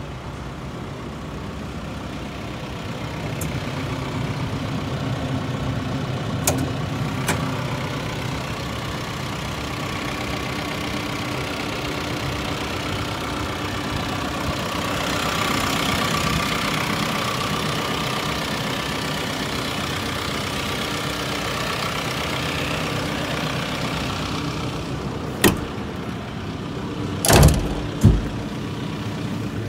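The JCB 85Z-1 midi excavator's diesel engine idling steadily. A couple of light clicks come about six to seven seconds in, and three sharp knocks near the end, the loudest sounds here, from the machine's panels or cab door being handled.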